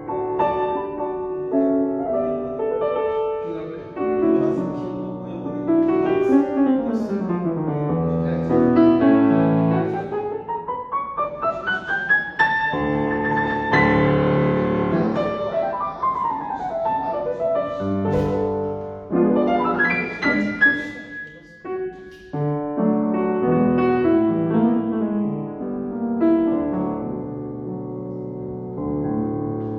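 Piano-voiced keyboard playing chords, with fast runs sweeping up the keys and back down about halfway through, and another quick upward run soon after.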